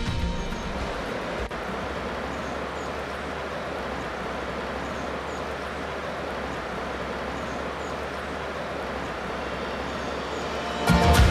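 Steady rush of a flowing river, with a few faint bird chirps. Music comes in loudly near the end.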